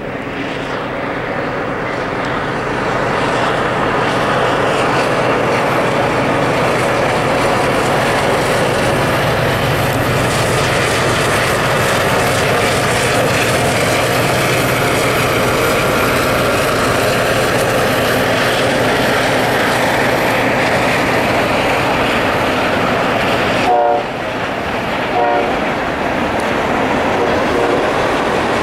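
A CSX freight train passing close by: the lead diesel locomotive running and a steady rumble and clatter of wheels on rail, building over the first few seconds and then holding loud and even. Two brief sharp sounds come near the end.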